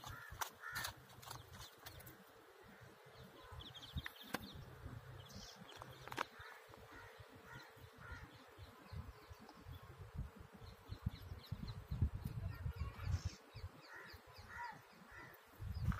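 Faint outdoor ambience: wind and handling rumble on the microphone, a few sharp knocks in the first second, and scattered short bird calls, some of them crow-like caws.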